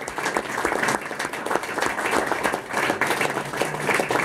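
Audience applauding after a song: many hands clapping steadily.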